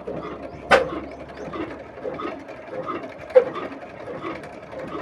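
Old single-cylinder stationary diesel engine running with a steady, loose clatter of about two beats a second, with two sharp knocks, one about a second in and one a little after three seconds.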